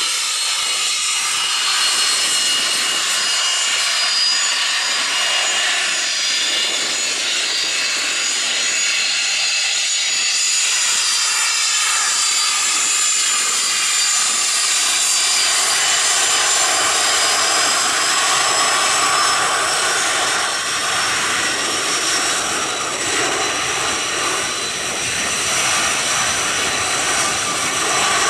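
Armstrong Siddeley Viper turbojets of Jet Provost trainers running at taxi power: a loud, steady, high-pitched jet whine with several shrill tones that drift slowly in pitch over a rushing hiss.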